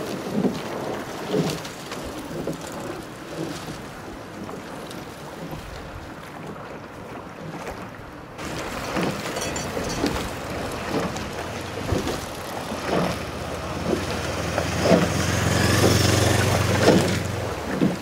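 Wind buffeting the camera microphone beside a canal, with soft thuds about once a second. A low motor hum builds over the last few seconds.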